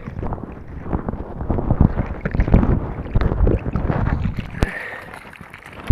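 Water sloshing and splashing irregularly around a person in the water holding on to the side of a folding kayak, with small knocks on the hull; it settles a little near the end.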